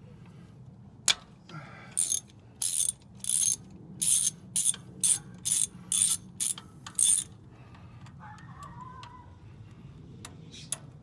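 A socket ratchet clicking in about a dozen short strokes, backing spark plugs out of a Honda D15B7 engine. It starts with a single click, and the strokes run from about two seconds in to about seven seconds in.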